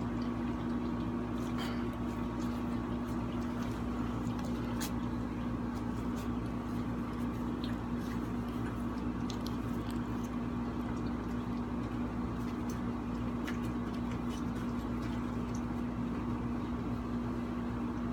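A steady mechanical hum with a constant low tone, unchanging throughout, with a few faint clicks scattered through it.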